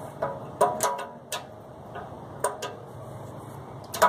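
Hand tool clinking against the metal fan motor mount and blade hub of a heat pump condenser fan: an irregular series of sharp metallic clicks, several ringing briefly, the loudest near the end.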